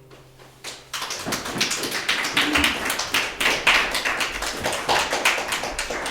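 The last acoustic guitar chord rings out faintly, then an audience breaks into dense applause about a second in.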